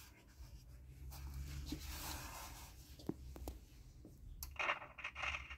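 Fingers rub and handle the plastic case of a small Mitsubishi pocket radio and turn its thumbwheel, making scratchy handling noise and a few sharp clicks. A little before the end, the radio's speaker comes on with a hiss.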